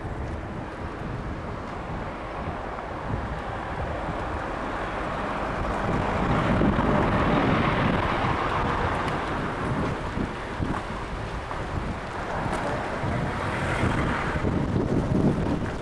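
Wind buffeting the microphone of a moving bike's action camera in gusty wind, swelling about halfway through and again near the end.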